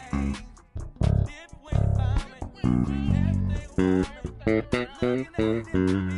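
Fodera Emperor Standard 5 five-string electric bass played solo: a run of short plucked notes with brief gaps between them, getting quicker about four seconds in.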